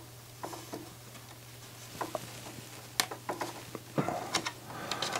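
Small scattered clicks and rattles of plastic parts and wiring as the CD player's black plastic loader mechanism is handled, with a sharper click about three seconds in and a run of clicks near the end. A faint steady low hum runs underneath.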